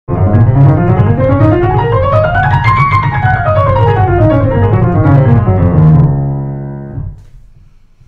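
Grand piano: a fast scale played with both hands, climbing steadily to its top about three seconds in and running straight back down. It ends on a final chord about six seconds in that rings and fades away.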